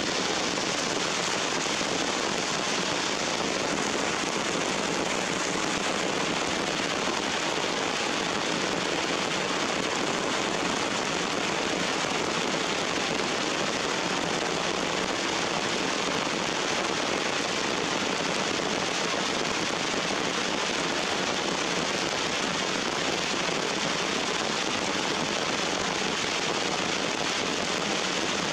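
Heavy rain falling steadily on leaves and rocks, a dense, even pattering hiss with no letup.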